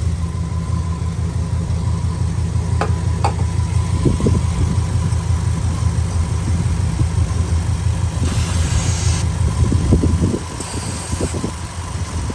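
A Dodge Durango's 5.9L Magnum V8 idling while it misfires. Twice, near the end, a short hiss of brake parts cleaner sprayed around the intake to test for a vacuum leak; the engine gets quieter just after the second, in a test the owner concludes shows the intake gasket sucking air.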